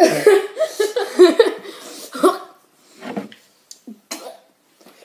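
A boy coughing and making wordless, laughing vocal noises in reaction to an extremely sour candy, loud for about two and a half seconds, then a few short, quieter sounds.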